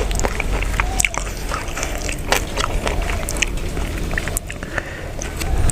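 A person chewing a mouthful of raw buffalo-meat larb with the mouth open: irregular wet clicks and smacks, over a steady low rumble.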